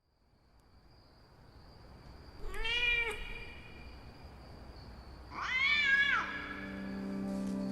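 Domestic cat meowing twice, each meow rising then falling in pitch; the second meow is longer and louder.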